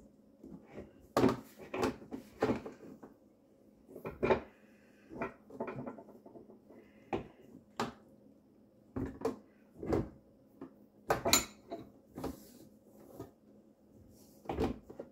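Irregular knocks, clicks and clatter of a plastic dishwasher drain hose and sink plumbing fittings being worked loose and handled inside a wooden sink base cabinet. The loudest knocks come about a second in and about eleven seconds in.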